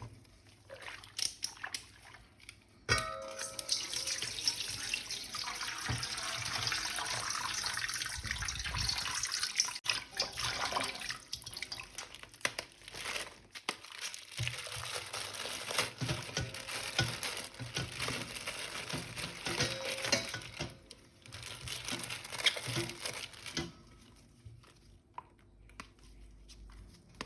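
Tap water running and splashing while a plastic toy action figure is washed, with small knocks of the toy. The water starts about three seconds in and stops shortly before the end.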